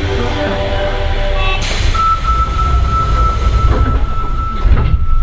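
Sendai Subway 1000 series train heard from inside the car: the low rumble of running gear and the whine of the traction inverter and motors. For the first second and a half several whining tones step in pitch together, then a hiss comes in and a single steady high whine holds.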